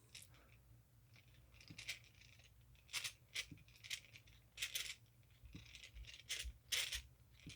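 North Brothers Yankee No. 445 two-speed hand drill being cranked in its S gear setting, its gears and metal parts giving faint, irregular clicks and rattles.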